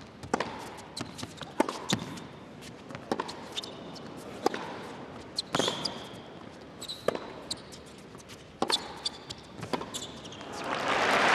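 Tennis rally on an indoor hard court: racquets strike the ball back and forth roughly every second to second and a half, with short sneaker squeaks between strokes. Crowd applause swells up near the end as the point is won.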